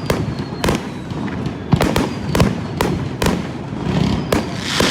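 Fireworks display: shells bursting in irregular succession, sharp bangs at roughly two a second, with a crackling hiss building near the end.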